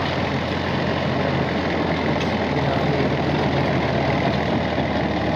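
Massey Ferguson 240 tractor's three-cylinder diesel engine running steadily under load, driving a PTO rotavator that churns through dry field soil.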